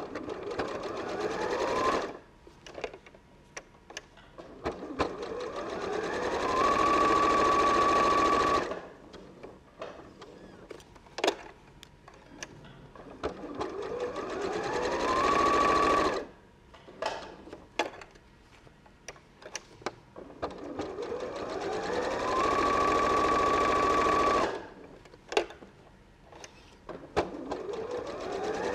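Electric sewing machine running a straight stitch through fabric layered on wadding, in about four runs that each speed up to a steady pace and stop suddenly. There are small clicks and knocks in the pauses between runs.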